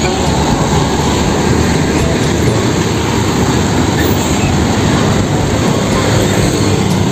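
Road traffic: a Mitsubishi Fuso crane truck driving past with motorcycles around it, a steady, loud rush of engine and road noise.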